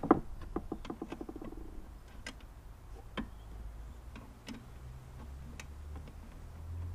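Hand tools on a mower being bolted together. A sharp metallic knock is followed by a quick run of clicks that speed up and fade out within about a second and a half. Scattered single clicks and taps come after.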